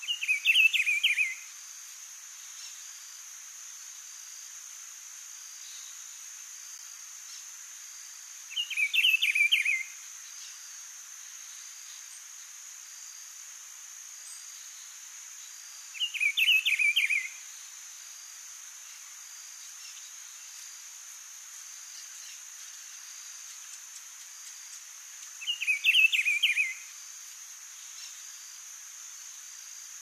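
Rufous-browed peppershrike singing four short, loud phrases of about a second and a half each, several seconds apart: one right at the start, then about 9, 16 and 26 seconds in. Under them runs a steady high-pitched drone.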